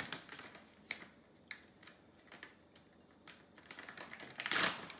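Scattered light clicks and taps from handling ingredient packaging, then a louder plastic rustle about four and a half seconds in as a plastic bag of sliced almonds is pulled open.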